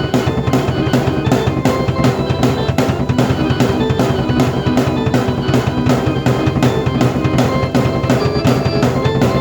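Drum kit played in a steady driving beat with bass drum and snare, under sustained keyboard notes played at the same time.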